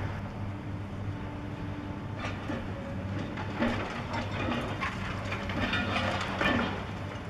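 Caterpillar 5080 hydraulic excavator's diesel engine running steadily, with irregular clanking and scraping of metal and concrete from the demolition work starting about two seconds in, and two louder knocks.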